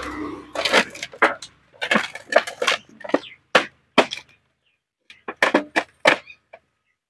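Thin tin sheet being folded and its edges pressed down by hand, crackling and clicking in short bursts with brief pauses between them, stopping shortly before the end.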